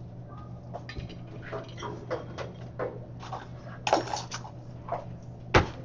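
Kitchen containers being handled and set down on a countertop and wooden cutting board: scattered light clicks, a rustle about four seconds in and one sharp knock near the end, over a steady low hum.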